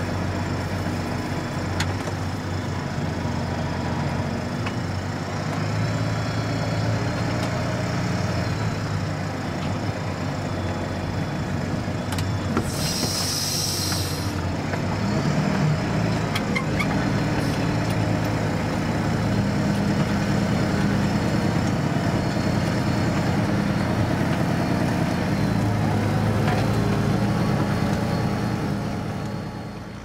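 Valtra T162e tractor engine running steadily under ploughing load, heard inside the cab, its note shifting a little as the load changes. A brief hiss sounds about 13 seconds in.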